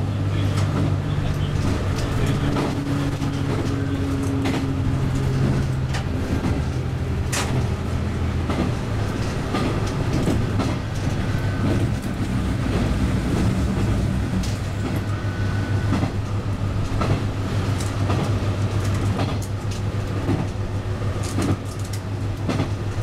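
Tosa Kuroshio Railway 9640 series diesel railcar running on plain track: a steady diesel engine drone with irregular clicks from the wheels on the rails. The engine note changes about five seconds in.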